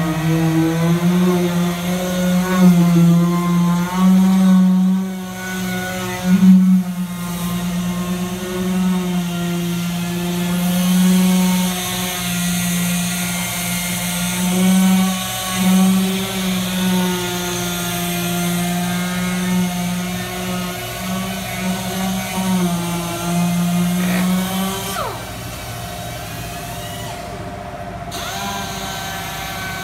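Power sander running on a truck's painted bodywork, a steady whine that wavers up and down in pitch as it is pressed on and eased off: sanding the old paint down before repainting. About five seconds before the end the whine stops and a quieter, different steady hum remains.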